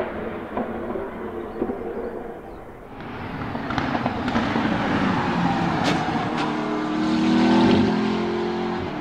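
McLaren 650S GT3 race car's 3.8-litre twin-turbo V8 approaching on track, with a few sharp cracks midway. It then accelerates away, its pitch rising loudest near the end before easing off.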